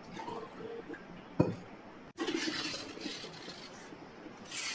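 Quiet kitchen handling sounds: water poured from a steel jug into a steel tumbler, then one sharp clink of steel about a second and a half in, followed by a stretch of hissy clattering of dishes.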